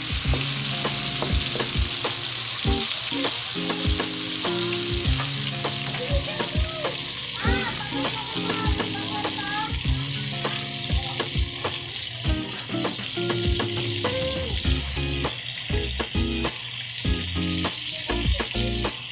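Food sizzling in a frying pan while it is stirred, the utensil clicking against the pan many times. Background music with held notes plays faintly underneath.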